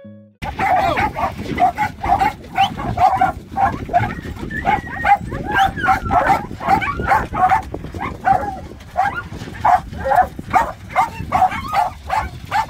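A pack of hunting hounds barking and yelping excitedly, many at once, as they are let out of the caged compartments of a dog van. Short high yelps follow each other at two or three a second and overlap, starting about half a second in.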